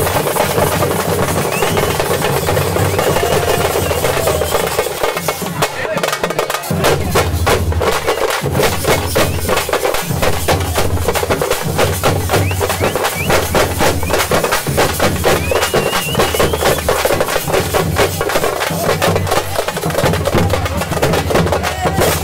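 Parai frame drums beaten with sticks in a fast, dense rhythm, with the voices of a crowd underneath.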